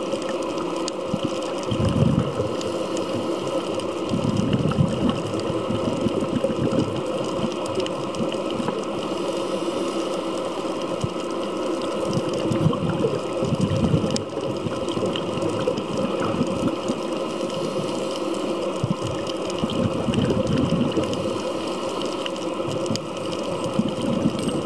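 Underwater noise picked up through the camera: a steady hiss and hum with a few held tones, swelling in low rushing surges every few seconds.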